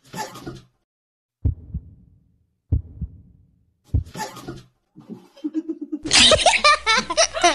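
Heartbeat sound effect added in editing: three low thumps about a second and a quarter apart, after a short breathy burst. About six seconds in, loud laughter takes over.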